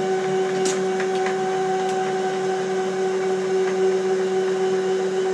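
CNC router spindle running at a steady speed with a steady whine while its engraving bit drills holes in scrap wood, with a few faint clicks about a second in.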